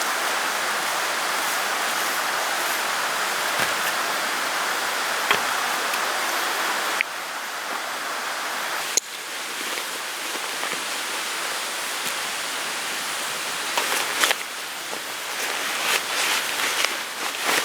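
Steady heavy rain, a dense even hiss. It changes abruptly twice partway through, and in the later part the rain is a little lighter, with individual drops striking sharply here and there.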